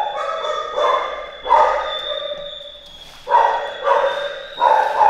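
Shelter dogs barking, about five sharp barks at irregular intervals, over a faint steady high-pitched tone.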